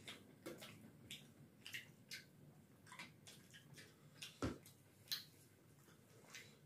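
Faint wet squishing and clicking of hands mixing and scooping rice with dal on steel plates, along with chewing, a few small sounds a second. Two louder clicks come about four and a half and five seconds in.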